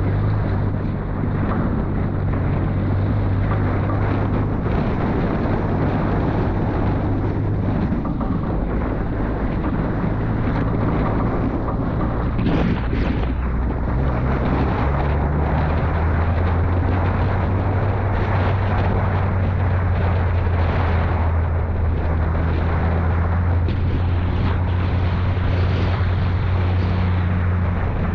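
Off-road vehicle's engine running with a steady low hum that shifts slightly in pitch about halfway through, over a constant wash of wind and driving noise.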